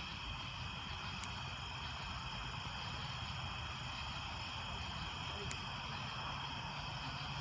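Steady chorus of night insects such as crickets and katydids, holding a constant high drone, over a low steady rumble. Two faint ticks, about a second in and near five and a half seconds.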